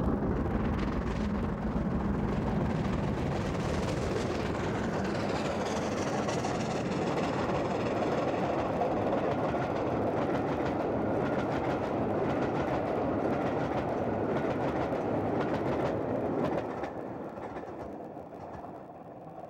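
Steam locomotive passing with a passenger train, its exhaust working, followed by the coaches rolling by on the rails; the sound fades away over the last few seconds.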